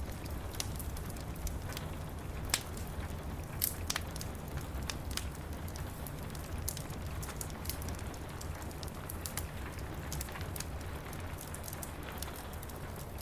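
Steady rain pattering on window glass over a low steady rumble, with a wood fire crackling in irregular sharp pops. The two loudest pops come a couple of seconds in and just under four seconds in.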